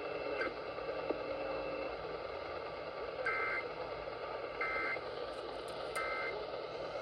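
Three short, two-tone electronic data bursts about a second apart, the EAS end-of-message (EOM) code that closes an Emergency Alert System test, received over a weak, static-filled AM radio signal. Steady radio hiss runs beneath them.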